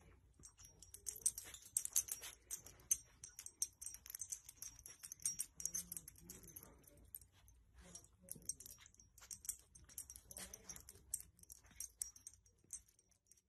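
Faint, irregular rustling and crackling of a fleece blanket as a dog pushes and tugs it into place with its nose.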